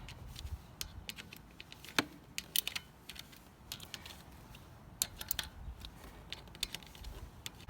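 Irregular sharp metal clicks of a hand socket ratchet and tool as the small bolts of an ATV oil filter cover are snugged down, with short runs of clicks and one louder click about two seconds in.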